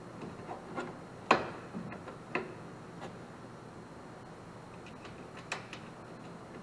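Light, scattered clicks and taps of wires and small parts being handled inside an air handler's sheet-metal control compartment, the sharpest one about a second in and a few fainter ones spread out after.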